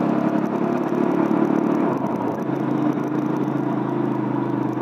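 Motorcycle engine running steadily while riding, with a shift in its note about two seconds in.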